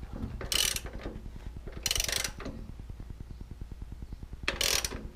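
Socket ratchet clicking in three short runs as it is swung back and forth on an Indian Chieftain's rear axle hardware, loosening it to adjust the drive belt.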